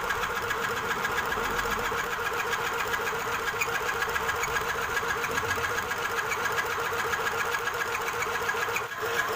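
Mini electric sewing machine running steadily under the foot pedal to wind thread onto a bobbin: a continuous motor whir with fast, even mechanical ticking. It dips briefly near the end, then picks up again.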